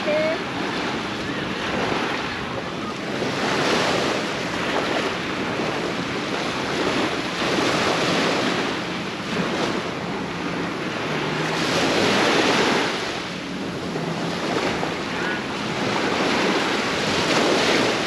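Sea waves breaking and washing up on a sandy beach. The surf swells and falls back every four or five seconds.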